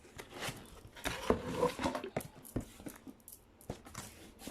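Cardboard box being opened and handled: irregular taps, knocks and rustling of the flaps and packaging.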